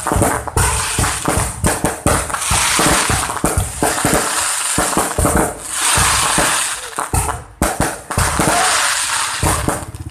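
Aerial fireworks going off in a near-continuous barrage: rapid bangs of bursting shells over dense crackling from crackle-star effects, with a brief lull about three-quarters of the way through.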